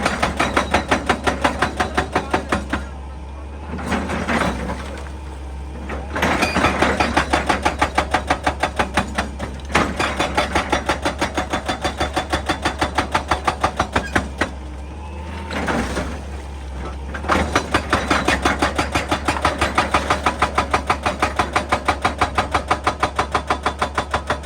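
Excavator-mounted hydraulic breaker hammer pounding rock at a steady rate of about five blows a second, over the excavator's running engine. It comes in three runs, pausing about three seconds in and again about fifteen seconds in.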